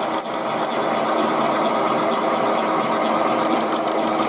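Milling machine running, its end mill cutting through the thin metal of a tin can under hand feed: a steady machining noise with fast high clicks from the cutter.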